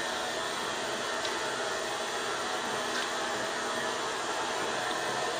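Steady hiss of steam from a class 50 steam locomotive creeping slowly forward, with a couple of faint ticks.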